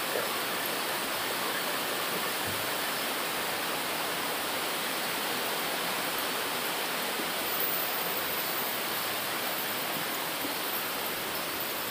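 Heavy monsoon rain pouring on a muddy, waterlogged path and bamboo foliage: a dense, steady rush of falling water with no letup.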